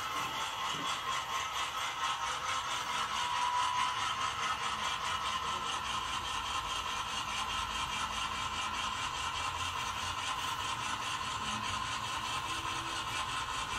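HO scale model diesel locomotive running slowly, with a steady engine-like hum.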